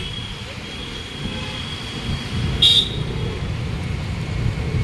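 Motor scooter running along a street, heard from the pillion: a steady low engine-and-road rumble with wind buffeting the microphone. A short, loud high sound comes a little over halfway through.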